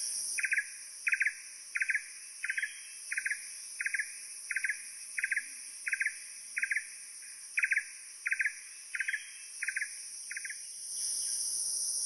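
Blue-throated barbet calling: a steady series of about fifteen short, doubled notes, one roughly every 0.7 seconds, stopping about a second before the end. A constant high insect drone runs underneath.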